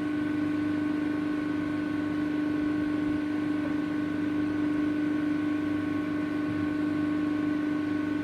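ACCURL hydraulic guillotine shear's hydraulic pump running idle with no cut being made: a steady, even hum with a held tone and a few fainter higher tones.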